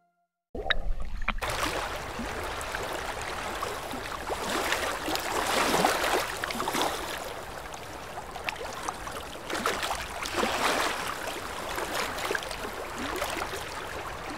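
Choppy sea water lapping and splashing right at a camera held at the water's surface, with a low rumble underneath and irregular louder splashes. It starts suddenly about half a second in.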